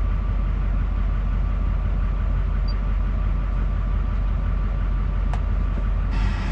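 Rollback tow truck's engine idling with a steady low rumble. A short electronic chime from the cab sounds near the end.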